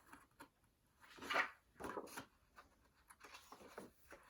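Faint rustling and soft handling of a paper picture book as its page is turned, with two louder rustles about a second and two seconds in and a few small clicks.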